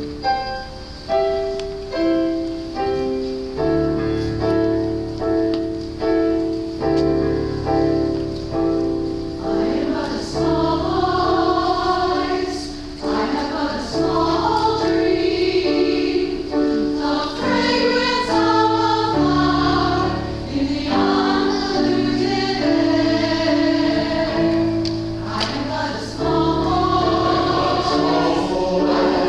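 Piano playing slow chords, joined about ten seconds in by a choir singing a hymn over the piano accompaniment.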